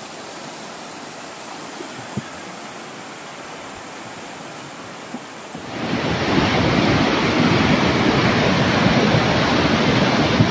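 Floodwater rushing in a steady noisy roar. Just over halfway through it suddenly becomes much louder: a muddy river in spate, a torrent churning below a bridge.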